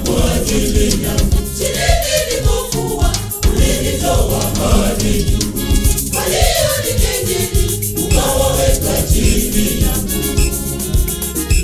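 A choir singing a gospel song together over an instrumental backing with a steady beat and bass.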